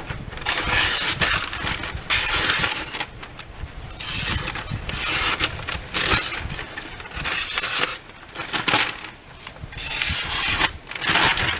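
Knife blade drawn across sandpaper on a Washboard freehand sharpening system: a series of gritty sharpening strokes, each about half a second to a second long, with short pauses between them.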